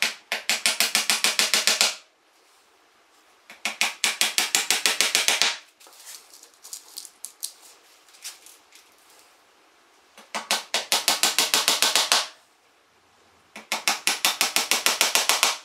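Small hammer tapping rapidly on wooden pattern pieces. It comes in four runs of quick, even blows, each about two seconds long, with lighter scattered taps in between.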